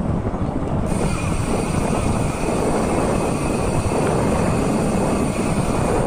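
Wind buffeting the microphone of a camera riding along on a moving mountain bike, a loud steady rush. About a second in, a steady high-pitched whine comes in on top and holds.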